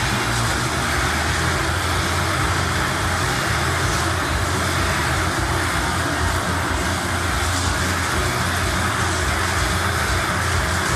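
Motorcycle engines running steadily as riders circle inside a steel-mesh globe of death.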